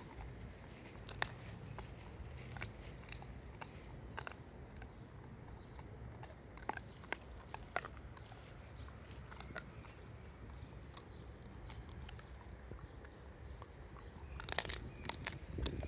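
Belgian Shepherd (Tervuren) gnawing and crunching on a snack held between its paws: scattered sharp crunches every second or so, with a quick run of louder crunches near the end.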